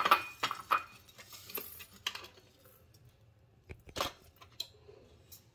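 Crisp dry-roasted chopped garlic scraped and tipped out of a grill pan into a glass bowl. Light clicks and scrapes come several times in the first second, then faint scraping, then a few more clicks about four seconds in.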